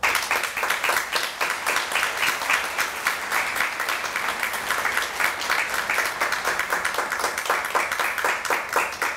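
Audience applauding, breaking out at once and keeping up steadily before starting to die away near the end.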